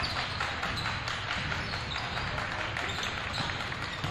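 Basketball game sound in a gymnasium: steady crowd chatter with a ball bouncing on the court.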